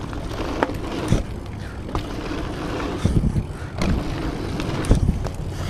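Mountain bike ridden fast down a dirt track: tyres rolling over packed dirt with a steady rumbling rush, and several sharp knocks and rattles as the bike hits bumps.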